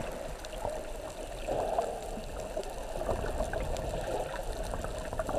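Water trickling and splashing as a steady noise.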